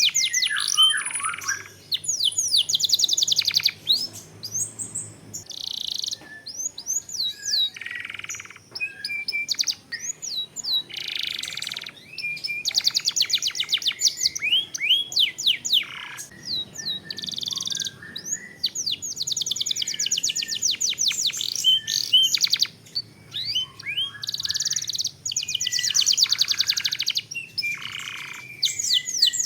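Domestic canary singing a long, fast song: rapid trills and rolls of repeated notes, swooping whistled slurs and buzzy phrases, broken by brief pauses.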